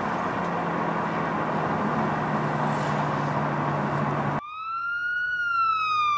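Steady engine and road noise inside the cabin of a BMW M6 on the move. About four seconds in, the car noise cuts out abruptly and a single siren wail takes over, rising briefly and then slowly falling in pitch.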